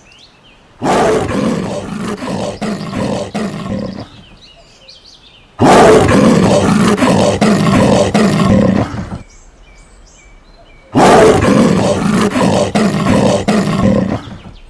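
A large wild animal roaring: three long, rough calls of about three and a half seconds each, with faint bird chirps in the pauses between them.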